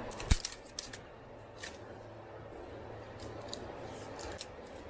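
Hand wire cutters snipping: one sharp click about a third of a second in, followed by scattered lighter clicks and ticks as the tool and wire are handled.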